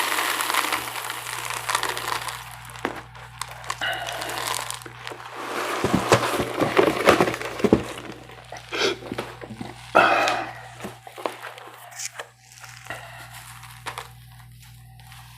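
Rice Krispies cereal crackling and popping in milk: irregular fine crackle with scattered clicks, denser in places and with a louder crinkly burst about ten seconds in, then thinning toward the end.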